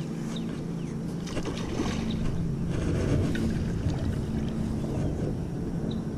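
Wind rumbling on the microphone, louder in the middle, over a steady low hum, with a few faint short chirps.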